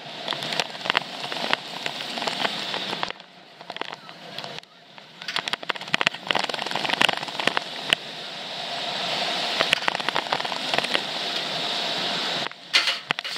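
Wind buffeting the microphone as the Bolliger & Mabillard hyper coaster train runs along its steel track at speed, with rattling from the train. The rush drops for a moment about three seconds in, then picks up again.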